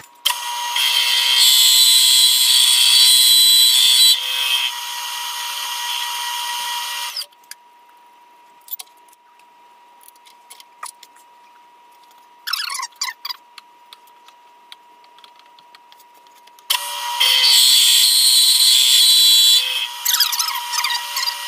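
End mill in an ATrump milling machine cutting aluminium: a loud, high-pitched cutting noise for about seven seconds, then a quieter stretch with only the spindle's steady whine and a few light clicks, then a second cut of about three seconds in the last third.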